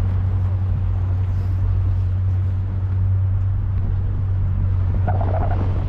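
Steady low mechanical hum, with a short higher-pitched sound about five seconds in.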